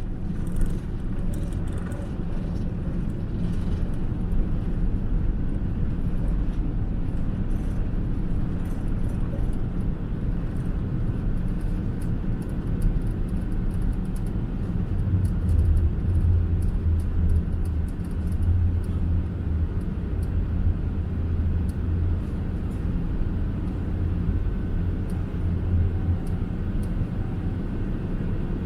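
Cabin noise inside a Boeing 777-300ER with GE90 engines: a steady low rumble with light ticking rattles, and a deeper drone that swells about halfway through and eases near the end.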